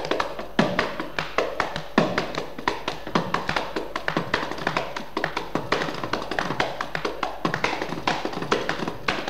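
Carnatic hand-drum solo in Adi talam: a fast, dense run of strokes, with a deep stroke about every second that bends in pitch.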